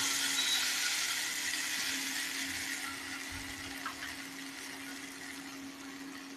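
Onions frying in oil in a nonstick pan, the sizzle dying away gradually, over the steady hum of an induction cooktop.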